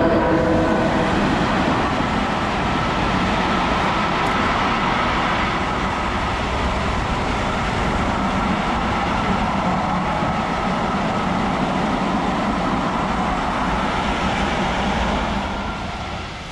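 Dirt bike engine running steadily as the bike is ridden along a rough trail, easing off near the end.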